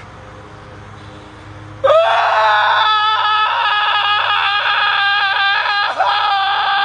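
A person screaming: after a low steady hum, a loud, high-pitched wail starts about two seconds in with a rising cry and is held for several seconds, breaking briefly near the end.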